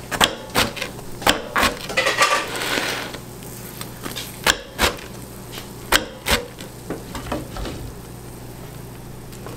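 Knife cutting through the crispy crust of a square pizza on a wooden board: a run of sharp knocks and crunches in the first three seconds, then two pairs of knocks around four and a half and six seconds in.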